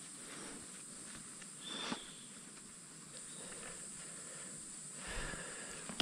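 Rainforest canopy ambience: a steady, high-pitched hiss of insects, with one short chirp about two seconds in. Low bumps and rustling from handling begin near the end.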